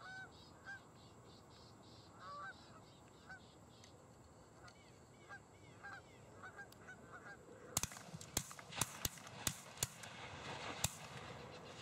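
Canada geese honking in flight, a call every second or so. In the last four seconds a quick volley of about seven shotgun shots rings out.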